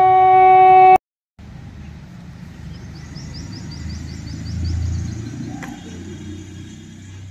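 A bugle holding the long final note of a salute call, cut off abruptly about a second in. Then outdoor background with a low rumble that swells and fades, and a bird's quick run of high chirps in the middle.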